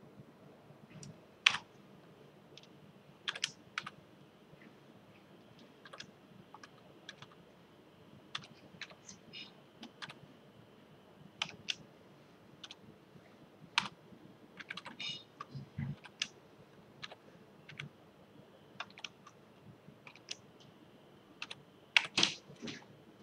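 Typing on a computer keyboard: scattered single keystrokes and short runs with irregular pauses between them, the sharpest about a second and a half in and a cluster near the end.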